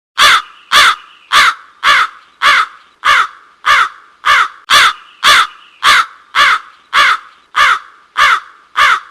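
Crow cawing: about sixteen short caws in a steady, even series, a little under two a second.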